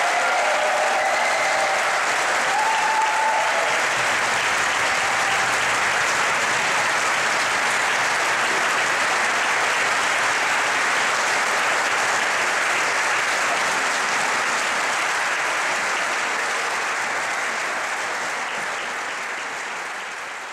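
Audience applauding steadily in a concert hall, with a few voices calling out over it in the first few seconds. The applause fades away near the end.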